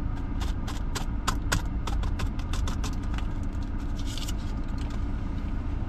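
A drinking straw being stripped out of its paper wrapper, the paper crinkling in many short crackles, thickest in the first couple of seconds. Under it runs the steady low hum of the car's engine idling.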